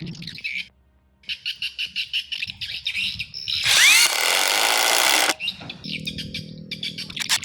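Cordless impact driver running in several bursts with a rapid rattling of its hammer action. The loudest stretch comes about halfway, with a motor whine that rises and falls at its start.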